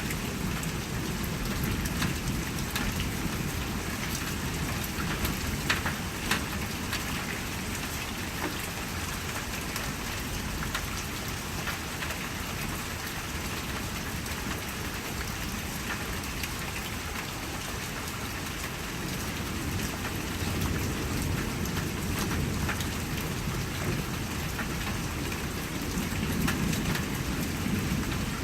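Steady rain falling, with single drops ticking on a nearby surface. Low thunder rumbles at the start and builds again over the last several seconds.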